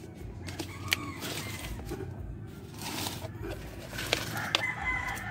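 Domestic chickens clucking, with a long steady call starting near the end and a few sharp clicks.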